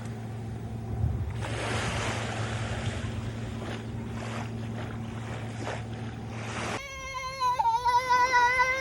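Sea waves washing on the shore, with wind on the microphone and a steady low hum underneath. About seven seconds in this gives way abruptly to a held, slightly wavering high-pitched tone with overtones.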